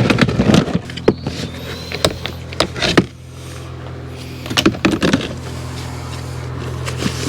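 A steady low engine hum, with a handful of sharp knocks and clatters about one to five seconds in.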